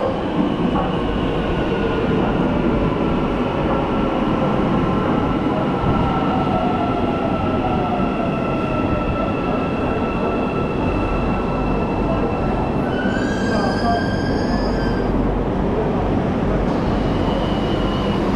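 Driverless metro train running underway, its steady rumble heard from inside the car, with thin whines that slide down in pitch partway through. A brief high squeal comes about two-thirds of the way in.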